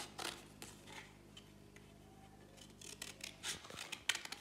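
Scissors snipping through yellow paper to cut out a star: several quick snips, a short pause in the middle, then more snips near the end.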